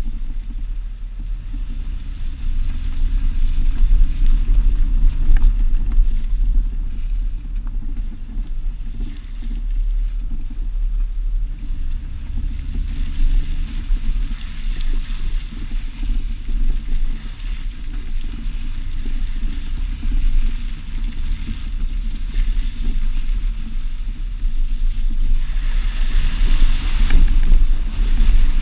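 A Jeep driving, heard from a mirror-mounted camera: a heavy, uneven low rumble of wind buffeting the microphone over engine and tyre noise. Near the end a louder hissing rush comes in.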